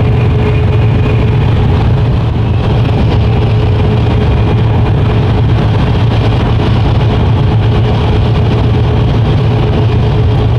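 Cab noise of a Mercedes-Benz Actros truck cruising on the motorway: a steady low engine drone under an even hiss of tyres on a wet road, with a thin steady whine above it.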